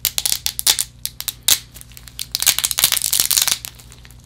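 Thin supports of clear ABS-like resin snapping and crackling as gloved hands break them off a resin-printed figure, a run of sharp cracks in uneven clusters that grows densest about halfway through.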